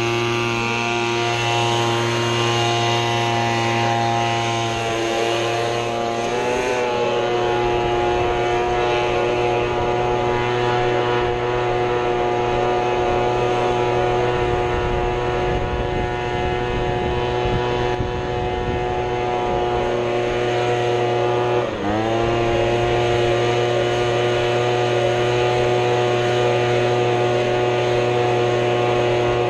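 Small gas engine of handheld or walk-behind lawn equipment running at a high, steady speed. Its pitch wavers about six seconds in, then drops sharply and climbs back about twenty-two seconds in, as the throttle is eased and reopened or the engine takes a load.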